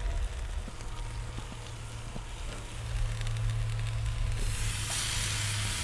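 Chicken breasts sizzling on a grill grate as barbecue sauce is squeezed on and brushed over them. The sizzle grows louder about four seconds in, over a steady low hum.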